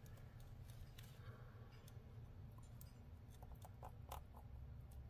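Near silence: room tone with a low hum and a few faint, light clicks.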